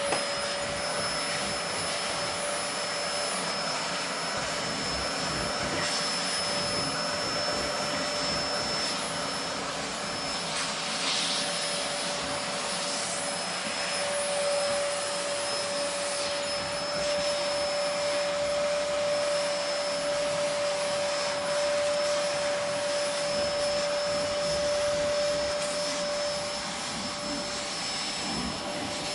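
Vacuum cleaner motor running steadily, a dense rushing noise with a constant whine of fixed pitch, and a few brief airy swells partway through.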